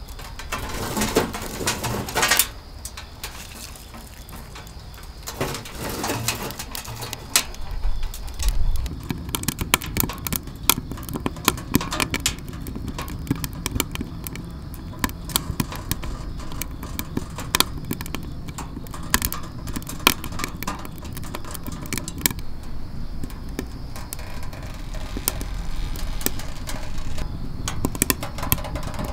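Wood fire burning in a small stainless-steel camping stove: a steady low rumble with frequent sharp crackles and pops. In the first couple of seconds, a stick of firewood is pushed in through the open stove door, knocking against the metal.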